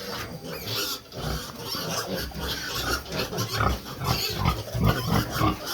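Several pigs grunting, with many short grunts overlapping one another.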